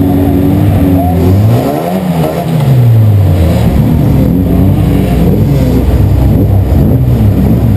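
Euro Rod racing car's engine running close under a bonnet-mounted camera as the car rolls along at low speed. The revs drop about two seconds in and pick up again a second later.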